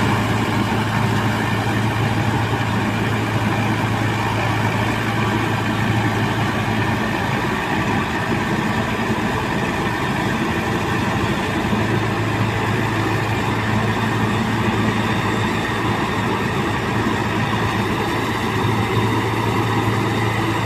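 Sonalika DI 750 diesel tractor running steadily while driving a Dasmesh straw reaper, the engine's low hum under the continuous rush of the reaper's threshing drum and straw blower. The low hum fades for a few seconds in the middle and then comes back.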